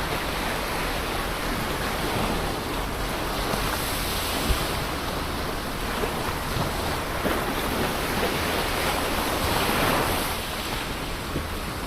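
Ocean surf: a continuous wash of waves breaking on the shore. One wave swells and breaks loudest about ten seconds in, then eases off.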